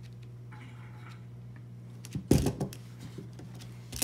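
Handling noise from paracord being pulled and wrapped around nylon webbing on a plastic paracord jig: a faint rustle early on, then a short cluster of knocks and rustles a little past two seconds in. A steady low hum runs underneath.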